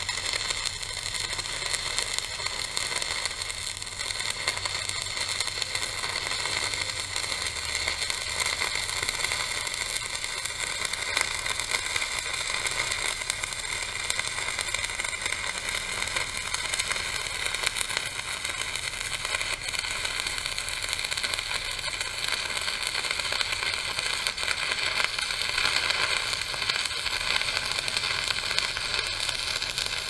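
Electric arc welding on the steel saw head: the arc crackles and hisses steadily with no breaks.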